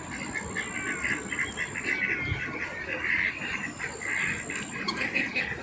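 Ducks quacking and chattering continuously, with other birds calling among them, on a lake.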